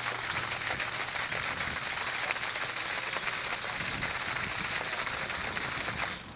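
Steady rushing of water pumped out through a sump pump's discharge line, cutting off suddenly near the end.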